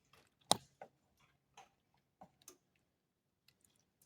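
A few irregular clicks and light knocks, with one sharp click about half a second in.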